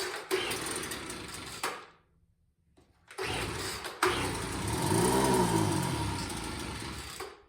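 Craftsman leaf blower's two-stroke engine being pull-started: a first pull, a pause, then a second pull on which the engine fires and runs, its speed rising and falling back before the sound cuts off abruptly near the end.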